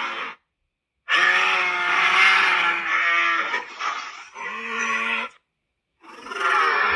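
Animated monster's vocal sound effects: a string of pitched creature calls with gliding pitch, played as separate clips with dead silence between them. The silences fall just under half a second in and about five and a half seconds in.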